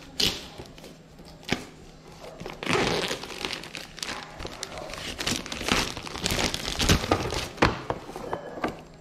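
Clear plastic film wrapping crinkling and rustling as wall picture frames are handled and pulled out of it, with a few sharp knocks of the frames being handled.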